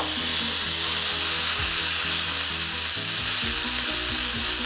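Whole roast chicken sizzling steadily in its hot drippings in a cast iron skillet just out of a high-heat oven, a continuous hiss, with soft background music underneath.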